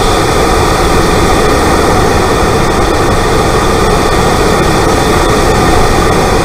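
Turbocharged Mazda MX-5 Mk1 engine (TD04 turbo) running at a steady speed, heard from inside the engine bay as a loud, even rushing noise with no revving.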